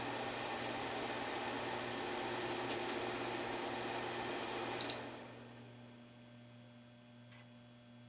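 Amana room air conditioner running steadily with its fan, then a short, sharp high beep about five seconds in, after which the running noise dies away over about a second to a faint hum.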